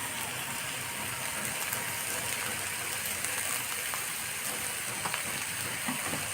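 Potato and aubergine pieces frying in oil in a pan, a steady sizzle with a few faint light clicks.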